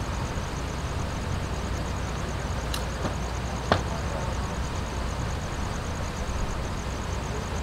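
Street ambience: a steady low rumble of traffic and idling vehicles, with a faint, fast-pulsing high tone underneath. A sharp knock comes about three and a half seconds in.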